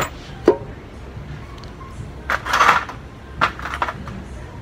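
Metal engine parts being handled: two sharp knocks about half a second apart, then two short scraping sounds as a 110cc motorcycle engine's clutch-side casing is shifted on a wooden bench.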